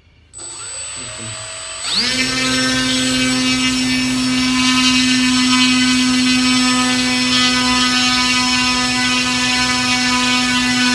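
Electric motor and propeller of a model airplane spinning up: a weaker rising whine at first, then about two seconds in it jumps to full speed, given as 10,000 rpm, and holds a steady, loud, buzzy whine.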